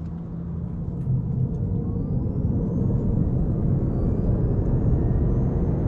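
BMW i8 heard from inside the cabin while driving: a low drivetrain and road rumble that grows louder, with a faint high whine rising in pitch.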